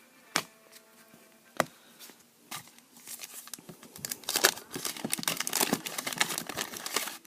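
A 1988 Topps football wax pack being opened: three sharp clicks in the first few seconds, then about four seconds of dense crinkling and tearing of the waxed-paper wrapper, which stops abruptly.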